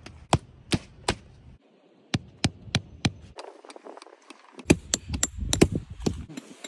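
A small wooden-handled hammer driving tent stakes into soft ground: sharp knocks in short runs, about three a second, with a quicker flurry of blows in the second half.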